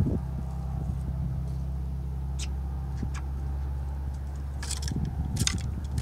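A steady, low engine hum, like a motor running at a constant idle, with a few faint sharp clicks; it fades about five seconds in as irregular tapping returns.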